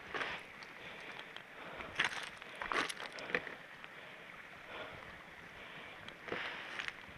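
Soft rustling and scuffing over a steady hiss, with no engine running. Several short scrapes stand out, the loudest between about two and three and a half seconds in, and another near the end.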